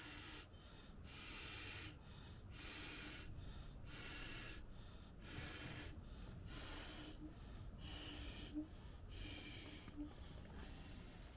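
A person breathing close to the microphone, a regular run of breaths about one a second.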